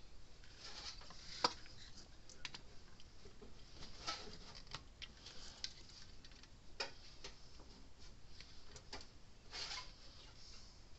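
Faint, scattered ticks and taps of a soldering iron and fingertips working on a fence charger's circuit board while parts are soldered in, with a few short hisses.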